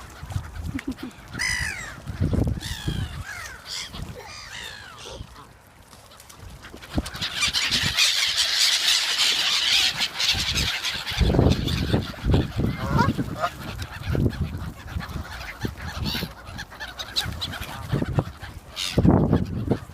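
Birds calling while being fed, with pitched calls that bend up and down in the first few seconds. A loud, noisy rush lasts several seconds through the middle, and low knocks and thumps follow in the second half.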